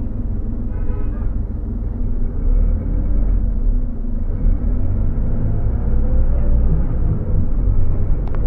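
Scania OmniLink single-deck bus's engine and drivetrain heard from inside the passenger saloon: a low rumble that grows louder and rises in pitch as the bus moves off. A short tone sounds about a second in.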